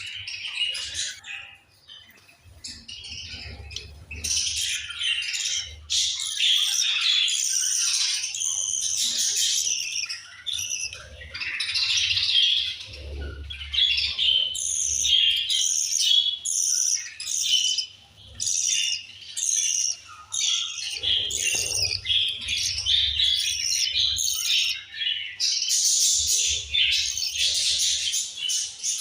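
Budgerigars chirping, many short high chirps overlapping without pause, with a low rumble coming and going underneath.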